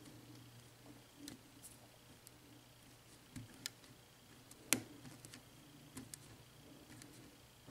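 Faint, irregular small metal clicks and ticks of a lock pick working the pins of a six-pin Abus 72/40 padlock during single-pin picking, with one sharper click about halfway through.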